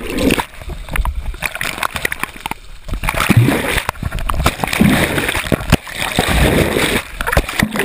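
Water splashing and sloshing close to the microphone in irregular surges.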